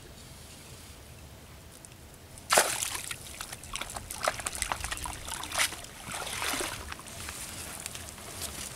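Water splashing and sloshing as a cast net is hauled out of a pond: a sudden loud splash about two and a half seconds in, then irregular splashes and water running off the net.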